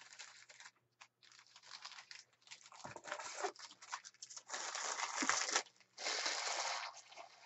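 Crinkling and rustling of Topps Match Attax trading cards and their foil packet being handled, in short scraping spells, with two longer, louder stretches in the second half.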